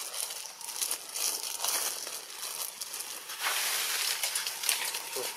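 Leaves and twigs rustling and crackling in irregular short bursts, over a steady high hiss.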